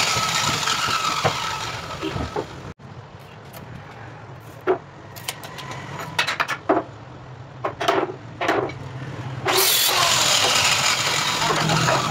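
Loud engine-like machine noise with a steady whine that cuts off abruptly about three seconds in. Then come several sharp knocks of wooden boards and strips being handled and set down, and the loud engine noise returns near the end.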